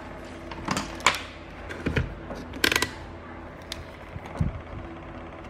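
A string of sharp clicks and light knocks as a digital multimeter is handled and set down on the bench, over a low steady hum.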